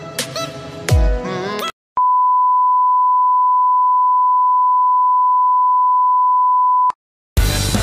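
Electronic music with deep falling bass sweeps, then a single steady beep tone at one pitch, held for about five seconds and cutting off abruptly. A louder, heavier music track starts near the end.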